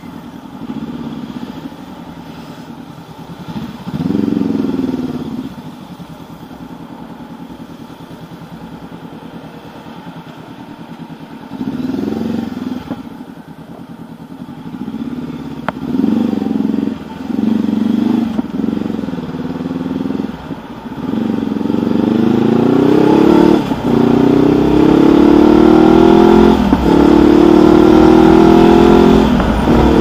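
Honda CB500X's parallel-twin engine ticking over and pulling away with short throttle blips, then accelerating up through the gears in the last third, the revs climbing and dropping sharply at each of about three upshifts.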